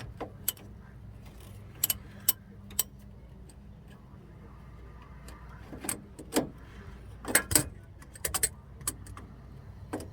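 Scattered metallic clinks and knocks of hand tools, a wrench being worked onto the lower shock bolt of the truck's front suspension. Most fall about two seconds in and in a cluster between six and nine seconds in.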